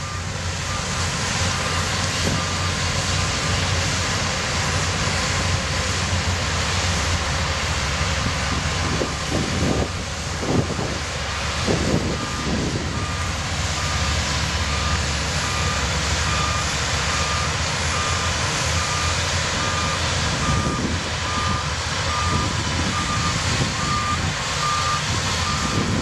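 Shantui DH17C2 crawler bulldozers' diesel engines running steadily as they push earth, with a reversing alarm beeping a little faster than once a second, for the first few seconds and again from about halfway on. A few low thumps come around the middle.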